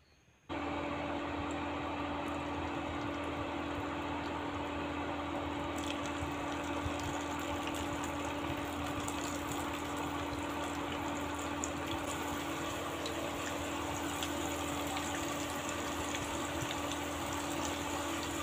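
Cabbage pakoras deep-frying in hot oil: a dense, steady sizzle with fine crackling, starting abruptly about half a second in.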